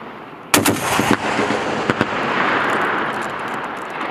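M2 .50 caliber heavy machine gun firing a short burst of about six rounds half a second in, followed by a long rolling echo across the range and one more single shot about two seconds in.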